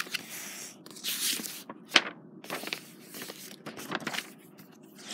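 Rustling and handling noises of someone moving about with the phone, with scattered clicks and one sharp click about two seconds in.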